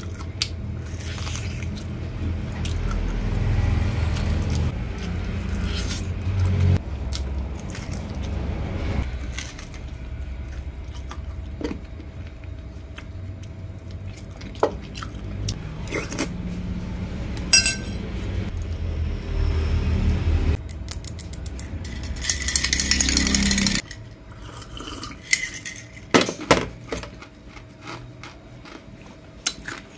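Close-miked eating of stewed pork trotter: chewing and gnawing on the meat and bone, with scattered light clinks of a spoon and glass dishes. A low rumble runs underneath and drops away about 24 seconds in, just after a brief louder hiss.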